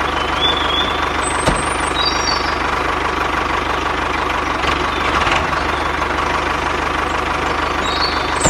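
Tractor engine idling steadily with an even low chugging, as a dubbed sound effect for the toy tractor. A few faint high chirps sound above it.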